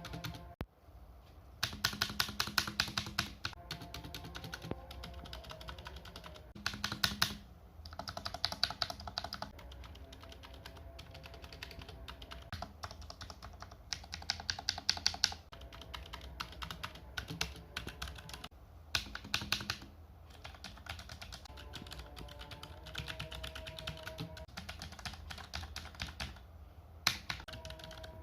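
Typing on a Tecware Phantom L low-profile mechanical keyboard with Outemu Brown switches: fast keystroke clatter in bursts of a second or two, with lighter typing in between. Faint music plays underneath.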